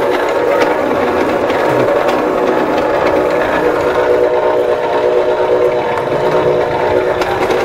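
Stainless electric noodle-cutting machine (Maksindo MKS-180SS, 370 W motor) running with a steady hum of several pitches. Its rollers draw a flattened dough sheet through the 1.5 mm cutter, turning it into noodles.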